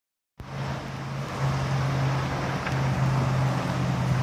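Honda FourTrax Rancher 420 ATV's single-cylinder engine idling steadily, a low hum that starts just under half a second in.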